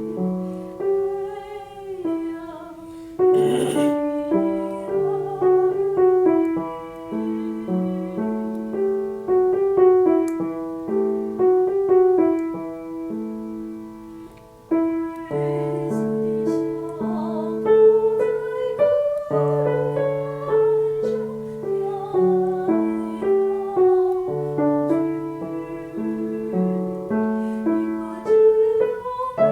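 Piano playing a slow accompaniment of chords over a moving bass line. It thins out and softens a little after the middle, then comes back fuller.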